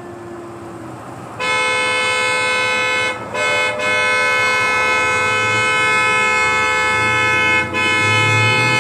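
Truck horn held down by a dog inside the cab, sounding one steady loud tone. It starts about a second and a half in and breaks off briefly three times before sounding on.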